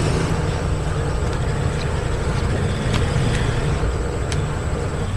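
Steady low rumble of a motor vehicle's engine, slowly fading, with a few faint short clicks.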